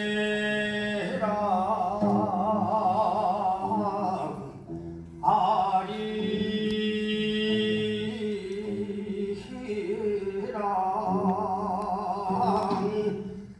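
A voice singing a slow Korean folk song (minyo) in long held notes with a wide, wavering vibrato. The phrases break briefly about four and a half seconds in and again near the end.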